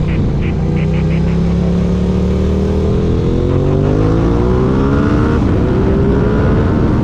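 Aprilia RS 660's parallel-twin engine through an SC Project full-system exhaust, accelerating hard with its pitch climbing steadily. About five and a half seconds in, an upshift drops the pitch, and it starts climbing again.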